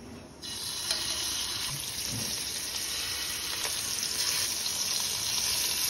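Seasoned chicken breast pieces frying in hot ghee in a kadai: a loud, steady sizzle starts suddenly about half a second in as the first piece goes into the pan, and carries on as more pieces are laid in.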